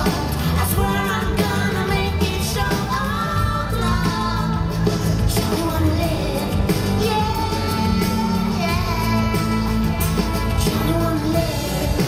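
Live pop song played through a concert PA: a female lead vocal sings over a band with a heavy, steady bass and drum beat.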